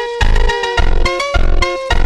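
Upbeat background music with a steady bouncy beat, about three bass pulses a second under short pitched notes.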